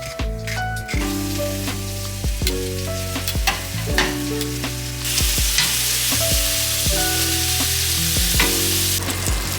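Food sizzling in a pan on a stovetop, the sizzle rising sharply for a few seconds past the middle and then dropping back, over background music.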